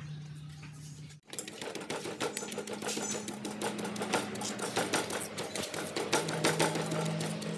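Wooden pestle pounding salt and red chilies in a stone mortar: rapid, uneven knocks of wood on stone, starting about a second in.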